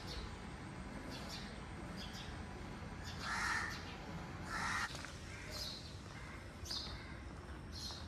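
A crow cawing twice, about three and four and a half seconds in, with small birds chirping now and then.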